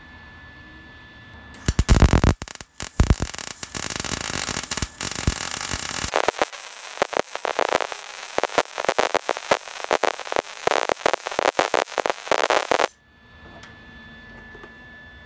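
Welding arc on steel tubing: a loud, dense crackling hiss starts about two seconds in, turns choppier with rapid crackles after about six seconds, and cuts off suddenly a couple of seconds before the end.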